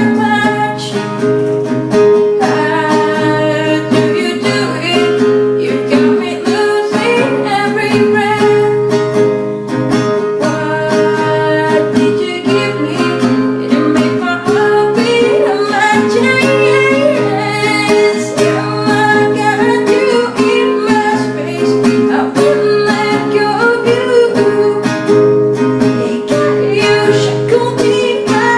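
Acoustic guitar playing with a voice singing over it: music.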